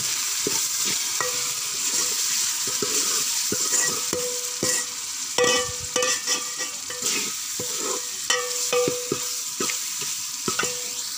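Onion-tomato masala sizzling in hot ghee in a metal pot while a metal spoon stirs and scrapes through it, the frying (bhuna) stage of the curry base. Repeated spoon clinks against the pot set it ringing briefly.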